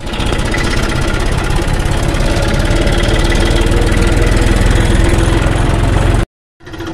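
Massey Ferguson tractor's diesel engine running on the move, heard from the driver's seat: a loud, steady, fast engine beat that cuts off suddenly near the end.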